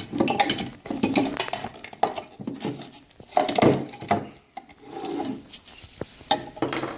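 Hard plastic knocking and clattering in irregular bursts as a turn-signal housing is handled, with the cut-out piece being worked loose.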